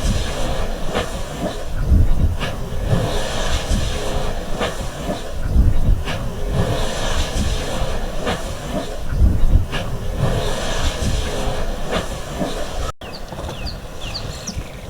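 Elephants splashing and spraying water in a river: a rushing, hissing noise that swells every two seconds or so, with a deep rumble underneath. After a cut near the end, small birds chirp.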